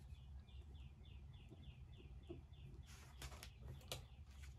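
Faint bird calling: a rapid string of short, falling chirps, about six a second, for the first two and a half seconds, then a few sharp taps and rustles over a low steady hum.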